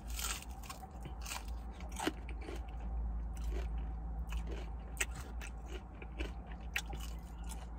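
A person chewing a crispy fried onion ring close to the microphone, with irregular crunches.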